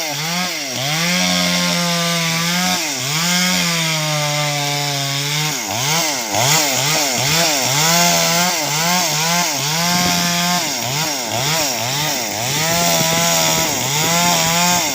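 Two-stroke chainsaw cutting into a tree trunk. Its engine pitch keeps dropping under load and climbing again, in slow swoops at first and then in quicker dips about twice a second.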